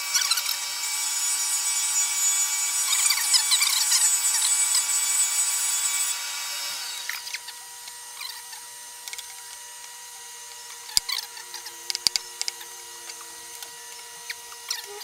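Milling machine cutting wood: a high steady motor whine with crackling as the cutter bites. About six and a half seconds in the cutting stops and the level drops to a quieter steady hum of the running machine, with a few sharp clicks near the end.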